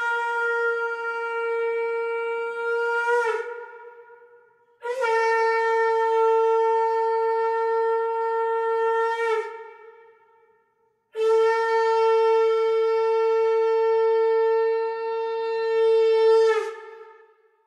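Conch shell (shankh) blown in three long, steady blasts, each about four to six seconds with a short gap between, the note dipping slightly as each blast tails off.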